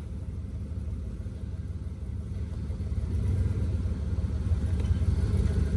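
Off-road 4x4's engine running at low revs as it crawls over rocks, a steady low rumble that grows a little louder about halfway through.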